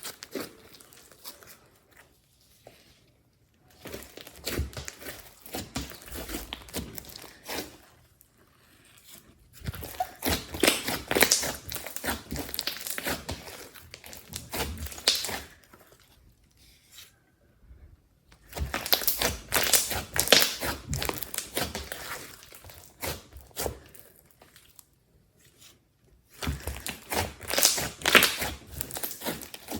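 Glossy slime being squeezed and worked by hand, giving dense wet crackling and popping. It comes in four bursts of a few seconds each, with short pauses between them.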